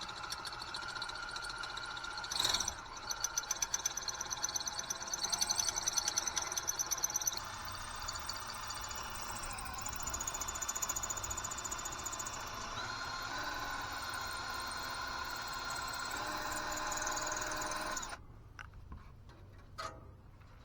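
A machine running steadily with a high whine and a rapid pulsing for a few seconds, stopping abruptly about 18 seconds in.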